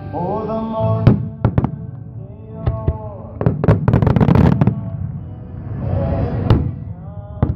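Aerial fireworks shells bursting in a series of sharp bangs, with a dense run of bangs around four seconds in. Music plays steadily underneath.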